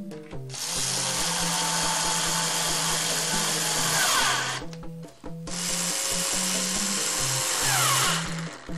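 Handheld electric screwdriver driving wood screws to fasten the back panel of a speaker box. It runs in two long spells of about four and three seconds, each ending with a slight falling whine.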